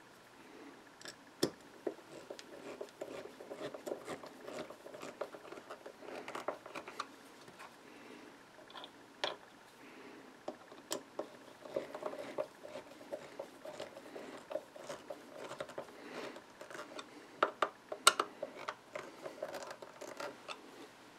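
Hand screwdriver turning wood screws into a shop-made wooden scratch stock, tightening them so the two blocks pinch the metal cutter blade between them. Irregular small clicks and scrapes of the driver tip in the screw heads and the screws turning in the wood.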